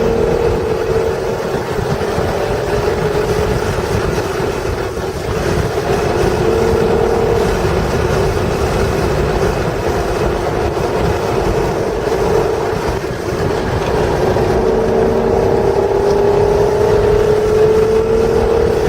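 1996 Acura NSX's stock 3.0-litre V6 running hard under load with road and wind noise, its note rising and falling, dipping briefly about 5 and 13 seconds in and climbing steadily near the end.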